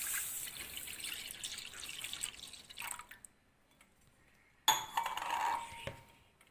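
Milk being poured into a kadai: a steady splashing pour that tapers off about three seconds in. About five seconds in there is a second short, sudden burst of pouring or clatter with a brief ringing tone.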